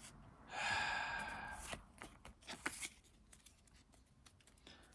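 A person's long exhaled sigh about half a second in, followed by a few light clicks as a stack of trading cards is handled and shifted between the fingers.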